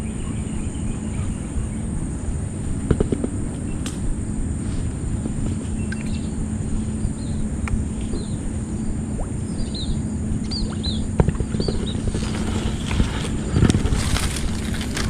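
Outdoor ambience: wind rumbling on the microphone under a steady high-pitched drone, with a bird giving a run of short chirps through the middle. Rustling and handling noise near the end.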